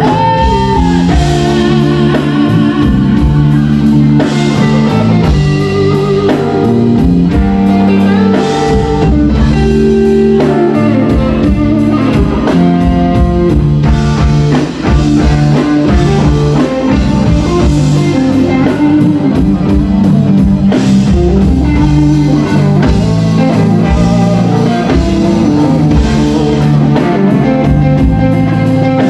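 Live band playing an instrumental passage with no vocals: electric guitars over a drum kit, loud and continuous, with wavering, bent guitar notes.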